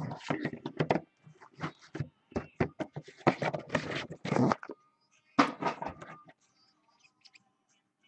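Rustling, crinkling and scraping of a trading-card box and pack as they are opened by hand, busy for about the first four and a half seconds, then a shorter patch of handling a second later before it goes quiet.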